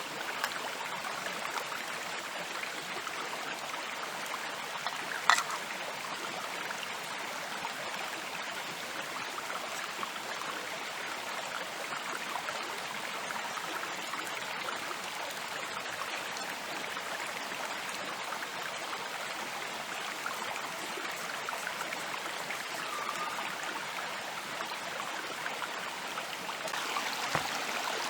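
Steady rush of flowing water, like a stream, with one sharp click about five seconds in and a soft knock near the end.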